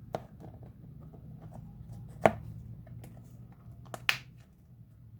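Blue slime being worked by hand: a few sharp pops and clicks, the loudest about two seconds in and two more close together near the end, with soft small crackles in between.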